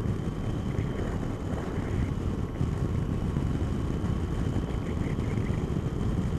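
Wind rushing over a microphone inside a motorcycle helmet while riding, with a Triumph Tiger's engine and road noise running steadily underneath.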